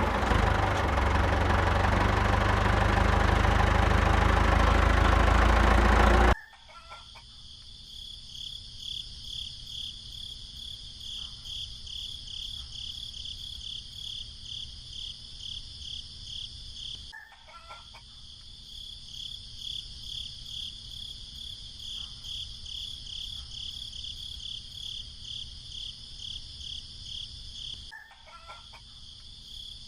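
A small engine, the mini tractor's, runs loudly for about six seconds and then cuts off suddenly. After that, crickets chirp steadily in a fast pulsing rhythm.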